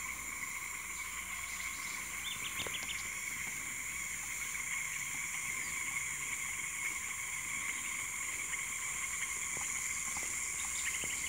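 Steady chorus of insects holding several constant high pitches, with a short run of quick ticks about two seconds in and again near the end.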